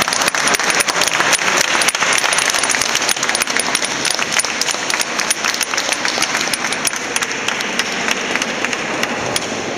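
A small group applauding with dense hand-clapping that thins out a little near the end.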